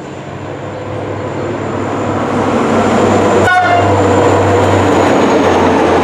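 SNCF electric locomotive hauling passenger coaches, running toward and past at speed: a steady rush of rail and wheel noise with a low hum, growing louder throughout. A short horn toot sounds about three and a half seconds in.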